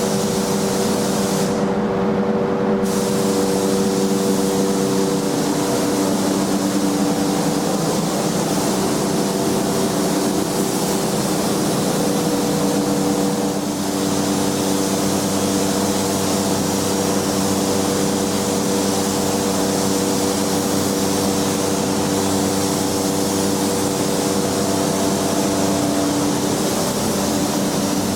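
Paint spray gun hissing steadily over a constant hum of shop machinery, spraying paint; the hiss cuts out briefly near two seconds in, as the trigger is let go, and then resumes.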